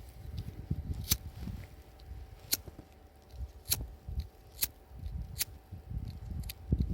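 Wood fire crackling: about six sharp, separate pops spread unevenly across the few seconds, over a low uneven rumble.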